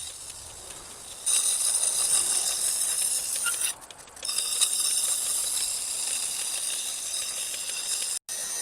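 Steel knife blade held against a large spinning grinding stone wheel: a steady, high hissing grind that starts about a second in, breaks off briefly near four seconds in, then runs on.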